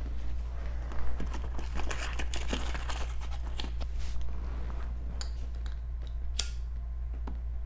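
Rustling, crinkling and small clicks of hands rummaging beside the chair for a cigarette and lighter, busiest in the first four seconds, then a few scattered taps and one sharper click a little over six seconds in. A steady low hum runs underneath.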